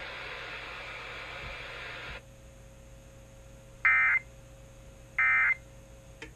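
Radio hiss cuts off about two seconds in. Then come two short, loud, buzzy Emergency Alert System SAME data bursts about a second apart, the end-of-message code that closes the warning, over a faint steady tone.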